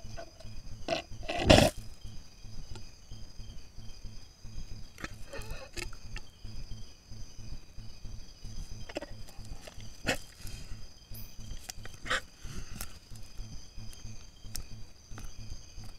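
Giant anteater snuffling and moving close to the camera trap, with one loud burst of noise about a second and a half in and softer scuffs and sniffs later. Behind it runs a steady high chirring of night insects.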